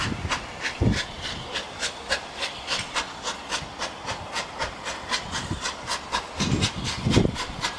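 Southern Railway Battle of Britain class Light Pacific 34067 Tangmere, a three-cylinder 4-6-2 steam locomotive, pulling away gently with its train: an even rhythm of hissy exhaust chuffs, about five a second. A deep rumble swells near the end.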